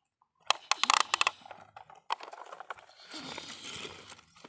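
Plastic toy construction vehicles handled in wet dirt: a quick run of sharp clicks and knocks about half a second in, then a gritty scraping as a toy dump truck is pushed over the ground.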